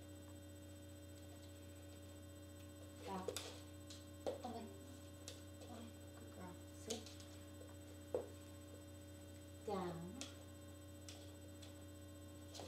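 Steady low electrical hum, with a few brief, quiet spoken commands from the owner and a single click about eight seconds in.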